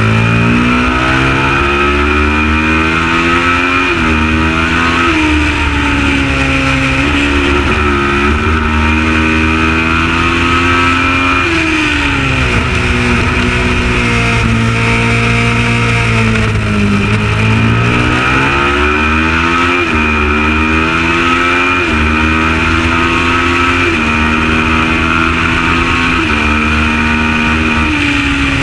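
Kawasaki ER650 parallel-twin race engine under hard acceleration, its revs climbing and dropping back sharply at each upshift. About a third of the way through the revs fall away for several seconds as the bike slows for a corner, then climb again through further upshifts.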